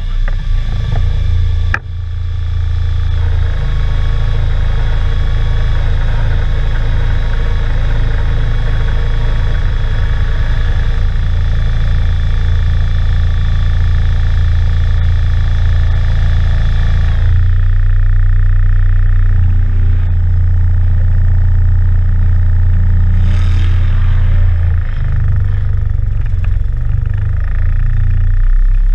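Off-road trial vehicle's engine running steadily at low revs, heard from inside the open cab. A higher steady whine over it cuts off about two-thirds of the way through, after which the engine note carries on alone.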